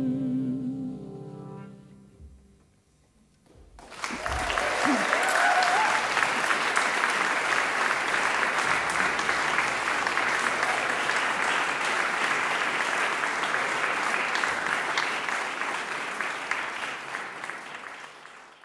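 The jazz quintet's last held note dies away, and after about a second of quiet an audience bursts into sustained applause, with a brief cheer as the clapping starts. The applause fades out near the end.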